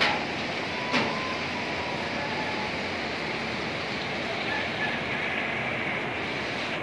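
Steady rush of a swollen, muddy river in flood, an even roar of fast-moving water. Two short knocks, one at the start and one about a second in.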